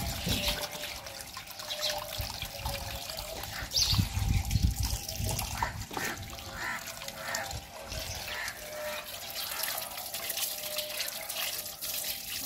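Water trickling from a hose pipe over raw green mangoes in a clay dish and splashing onto the ground while they are washed by hand, with a few dull bumps about four seconds in.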